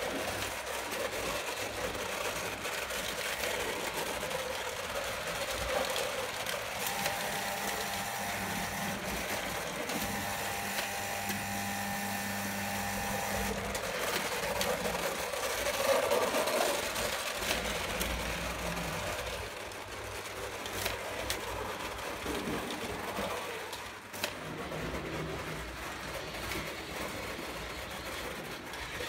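Electric O-gauge toy trains running on three-rail track: a steady mechanical whirring of the motors and wheels.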